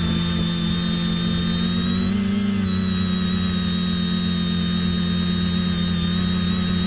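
X550AIOP quadcopter's electric motors and propellers running in flight, a steady multi-tone hum with a high whine above it. The pitch shifts slightly about two seconds in as the throttle changes.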